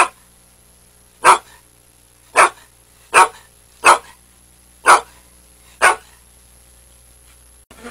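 A dog barking: a series of about seven short, separate barks, roughly one a second.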